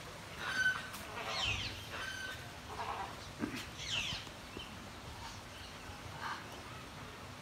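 Birds calling on and off: short, sharp calls, several sweeping quickly downward, most of them in the first half and fainter after.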